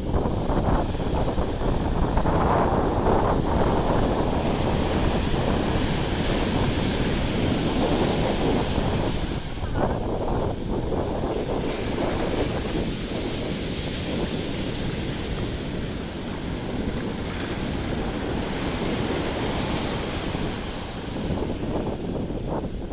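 Sea waves washing onto a beach in a steady rush, with wind buffeting the microphone.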